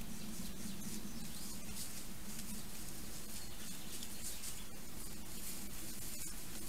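Wild boars rooting and moving through leaf litter: faint rustling with a few soft clicks over the trail camera's steady hiss and low hum.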